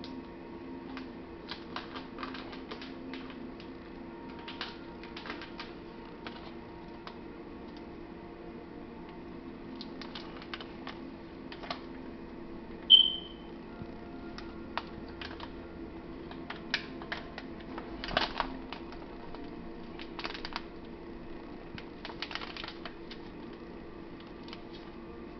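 Slotted wooden spatula mixing spaghetti in a nonstick pan, with irregular light taps and scrapes against the pan over a steady low hum. A short high-pitched tone sounds once about halfway through, the loudest moment.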